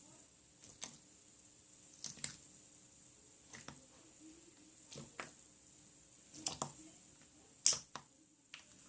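Clear slime being squeezed and pressed by hand, making sharp sticky pops and clicks about once a second, the loudest pop near the end.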